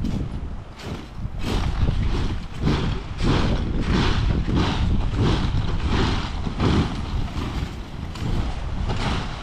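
Someone bouncing on a trampoline covered in hundreds of golf balls. The mat thumps and the balls clatter and rattle against each other on each bounce, in a regular beat of about one and a half bounces a second that settles in about a second in.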